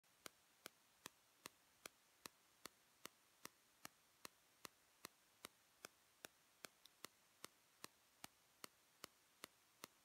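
Faint, steady ticking, about two and a half ticks a second, over near silence.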